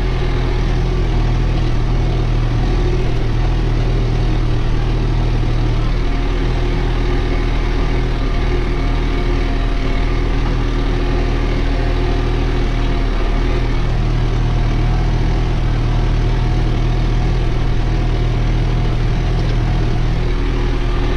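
Diesel engine of a New Holland TT4.65 tractor running steadily under load while pulling a plough through the soil, heard from inside the cab.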